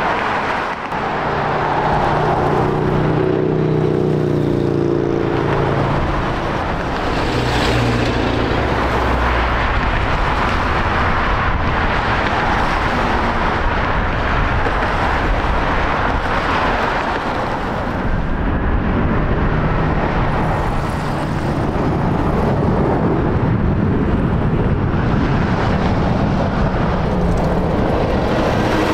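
Steady loud jet-engine noise from a FedEx Boeing 767 freighter rolling out after touchdown and taxiing, with a droning engine tone for a few seconds near the start.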